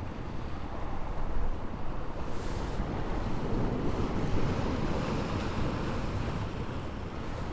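Wind rumbling on the microphone, with the sea washing against the rocks, swelling a little midway.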